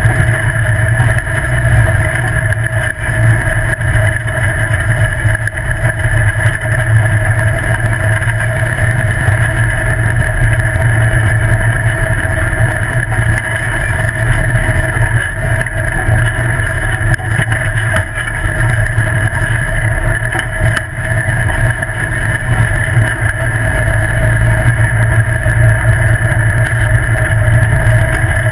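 Off-road buggy engine running at a steady pitch while the buggy drives fast along a dirt road, over rough road and wind noise.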